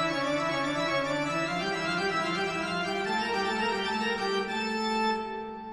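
Background music of slow, sustained keyboard chords, easing off near the end.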